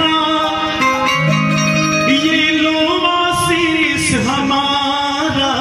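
Harmonium playing long held reed notes under a singer's voice in a Hindu devotional song to Hanuman; the voice glides and wavers through ornamented notes around the middle.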